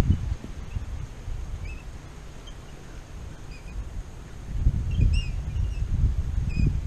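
Wind buffeting the microphone in low gusts, heaviest from about four and a half seconds in. Short bird chirps sound here and there throughout.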